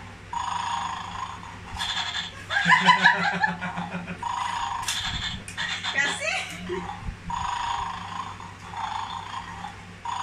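Electronic toy bulldog from a 'Mad Dog' tabletop game making its looped snoring sound through a small speaker, repeating about every second or two. People laugh about two and a half seconds in.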